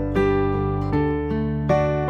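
Background music: an acoustic guitar picks a slow melody, a new note about every half second.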